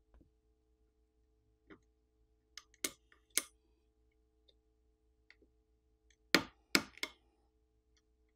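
Sharp little clicks and taps of small tools and phone parts being handled during a smartphone teardown: a few scattered ones, then three louder clicks in quick succession near the end.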